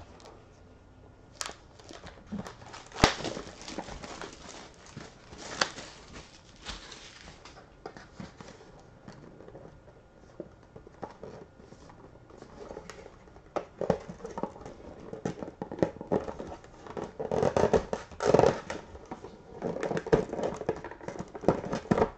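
Crinkling and tearing of plastic wrap and rustling, scraping cardboard as a sealed trading card box is unwrapped and handled. The rustling is sparse at first and grows busier and louder over the last several seconds as the box is worked open.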